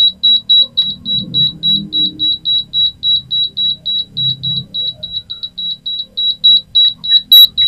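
Digital rice cooker's buzzer beeping nonstop, about four short high beeps a second. This is the fault the cooker shows along with its flashing display, which the technician traces to an unstable 5 V supply from a power-supply problem.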